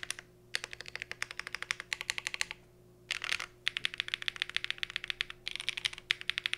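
Fast typing on a Cycle 8 mechanical keyboard built with Ice Cendol switches, a polycarbonate plate, case foam and GMK Lime keycaps: quick runs of key clacks, broken by short pauses about half a second in and near the middle.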